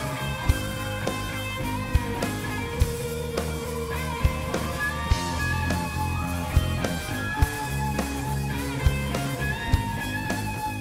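Live rock band playing an electric guitar solo, with bending lead notes over bass and a steady drum beat.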